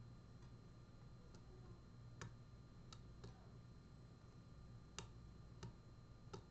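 Faint, sparse clicks of a lock pick and tension tool working the pins of a Gege pExtra pin-tumbler cylinder, about six spread unevenly across a few seconds, over a low steady hum.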